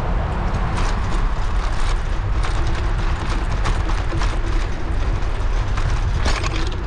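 Riding noise from a moving bicycle: wind buffeting the microphone as a steady low rumble, with tyre hiss and irregular clicks and rattles from the bike.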